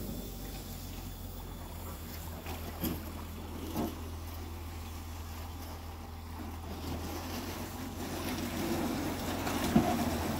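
An aluminum drift boat being hauled up a muddy bank onto a metal ramp, with a steady low hum of the hauling machinery. The hull scrapes and knocks, louder over the last couple of seconds as it climbs onto the ramp.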